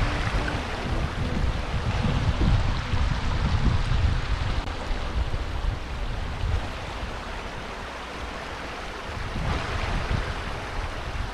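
Wind buffeting the microphone in uneven gusts, with a steady rushing hiss behind it; the gusts ease somewhat in the second half.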